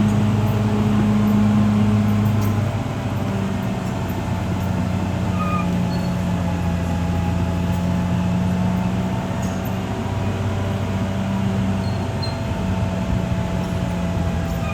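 Diesel engine of a Caterpillar D6R XL crawler bulldozer running steadily, its note dropping slightly about two and a half seconds in.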